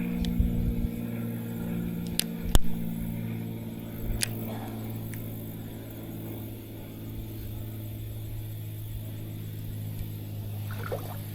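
A steady low mechanical hum, with a few sharp knocks about two and four seconds in, the loudest just after two and a half seconds.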